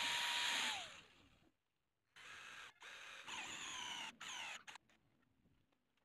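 A handheld power grinder working a metal part stops about a second in and winds down. After a short pause, an electric hand drill bores into a small aluminium plate held in a vise, in about four short bursts, its motor whine rising as it spins up.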